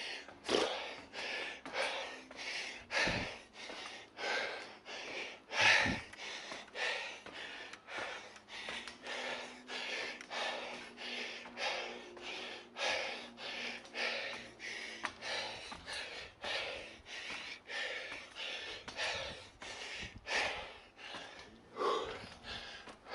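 A man breathing hard and fast from the exertion of climbing a long, steep flight of steel stairs, one loud breath after another at an even pace.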